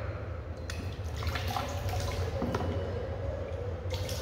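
Water pouring and dripping from a plastic bottle, with a few light knocks from the bottle being handled.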